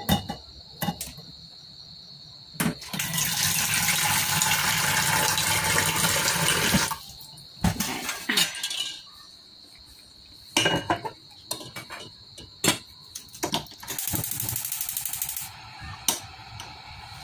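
Kitchen tap running into a small stainless steel saucepan for about four seconds, then metal clinks and knocks as the pan is handled.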